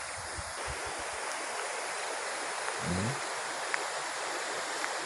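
Steady, even rushing outdoor ambience, with a few low thumps in the first second and a brief low rising sound about three seconds in.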